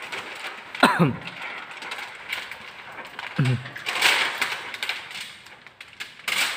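Window tint film rustling and crackling as the sheet is handled and pressed onto wet glass. A falling squeak about a second in and a short voice sound past the three-second mark.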